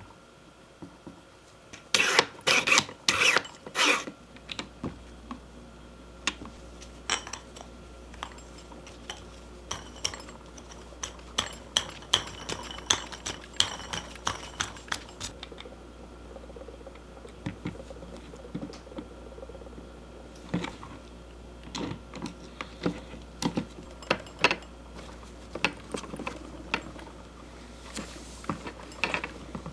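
Hard objects clicking and knocking as they are handled, with a quick run of four loud knocks about two seconds in and scattered lighter clicks after, over a faint steady low hum.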